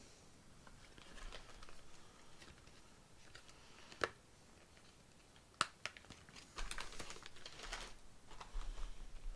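Hands handling plastic fishing-tackle packaging: light rustling and crinkling, two sharp clicks about four and five and a half seconds in, then denser crinkling near the end.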